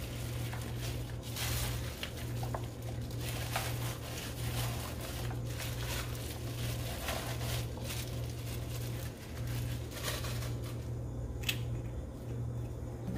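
Wet squishing of raw chicken pieces and sliced onion being mixed by hand in a plastic bowl, with the crinkle of the plastic bag worn as a glove, in uneven strokes that thin out about ten seconds in. A steady low hum runs underneath.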